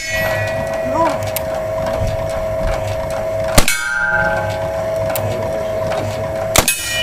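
Two black-powder rifle shots, about three and a half and six and a half seconds in, each followed by the brief ring of a struck steel target. A steady high hum runs under them.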